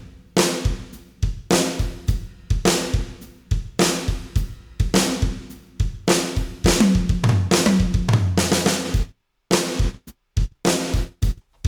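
An acoustic drum kit plays a groove of kick, snare and cymbals, with a falling tom fill part-way through. For most of the passage the hits ring on with roomy ambience. About nine seconds in, the room sound is cut off sharply after each hit, leaving short, choppy drum hits with silence between them. That is the truncated-ambience effect of expanding the floor component downward.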